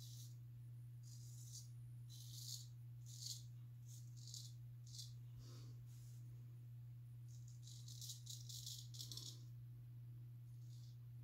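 A razor scraping through lathered stubble in a series of short, crackly strokes, with a quick run of strokes about eight seconds in. A steady low hum runs underneath.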